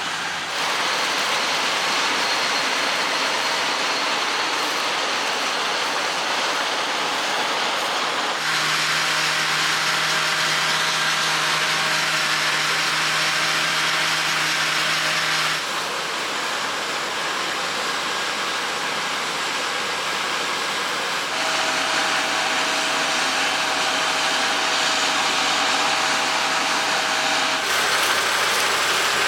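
John Deere X9 1100 combine harvester running while harvesting wheat: a steady, dense machine noise with faint steady whines. Its tone and loudness change abruptly several times.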